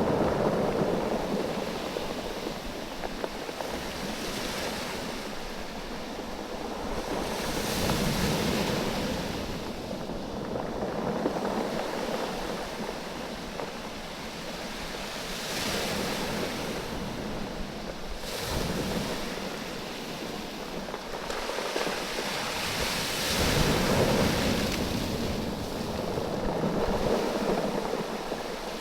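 Waves washing in and draining back over a bank of rounded oval beach stones, the stones clattering against one another as the water ebbs and flows. The surf swells roughly every eight seconds.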